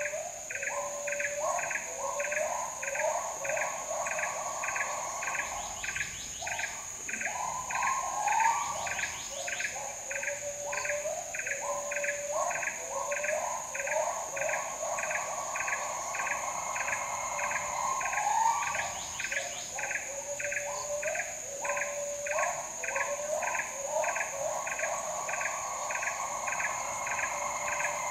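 Tropical rainforest insect chorus: a steady high-pitched drone with a regular chirp about twice a second. Under it runs a lower, repeated animal call that rises in steps and then breaks into long bubbling trills.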